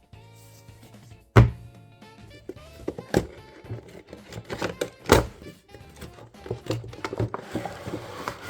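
Background music with sharp thunks and small clicks of an action-figure box and its packaging being handled; the loudest thunk comes about a second and a half in, with two more near three and five seconds in.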